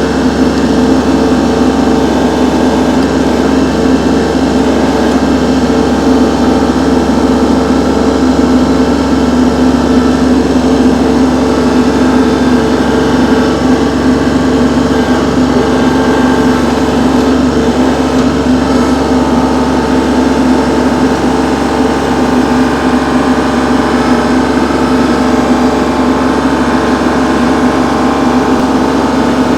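Kubota tractor's diesel engine running steadily and loudly while the grapple handles a log.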